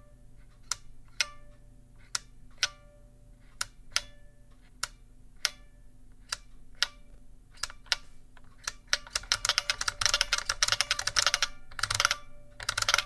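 IBM 5291 Model F "Bigfoot" keyboard's capacitive buckling-spring keys pressed one at a time, about two a second. Each clack is followed by a short metallic ping from the spring: the Model F 'ping' or 'sing'. From about nine seconds in comes a fast flurry of keypresses, then two short bursts near the end.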